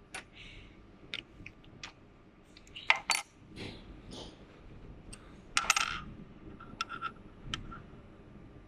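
Irregular light metallic clinks and clicks, like metal parts knocking together, a dozen or so strikes with the loudest cluster about three seconds in and another around five and a half seconds.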